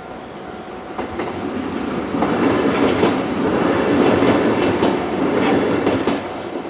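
A two-car JR 103 series electric train passing close by. The running noise swells from about a second in, is loudest through the middle, then eases. The wheels clack over the rail joints several times.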